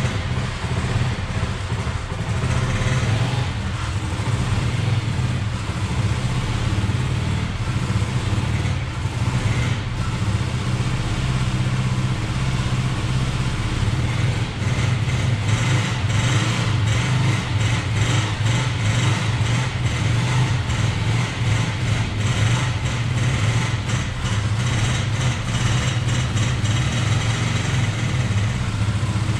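Motorcycle engine idling steadily while it warms up after a cold start, the choke still needed to keep it from stalling.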